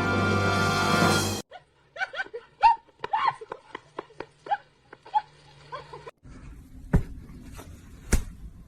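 Music cuts off about a second and a half in, followed by a quick series of short, high calls from a pet animal, then two sharp knocks near the end.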